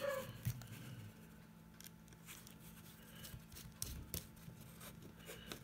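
Faint, scattered small clicks and taps of fingers handling metal screws and nuts against a clear acrylic case panel, over a faint steady low hum.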